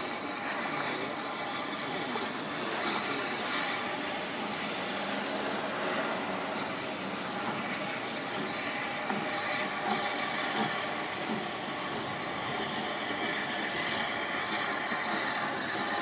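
Great Eastern Railway Class Y14 0-6-0 steam locomotive working a train of vintage wooden four- and six-wheeled carriages, a steady running sound of the engine and the train on the rails. A hiss of steam rises near the end.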